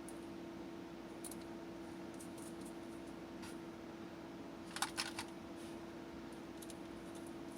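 Light clicks and taps of small hardware and tools being handled while a quadcopter frame is assembled. A quick run of three sharper clicks comes about five seconds in, over a steady hum.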